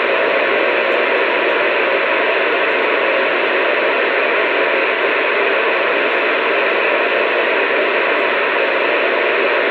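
Steady radio static: an even hiss on an open channel with nobody talking, unchanging throughout.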